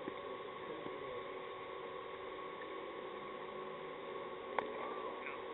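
Steady open-air hiss of a cricket ground under a faint steady hum, then near the end a single sharp knock as the bowled cricket ball is struck.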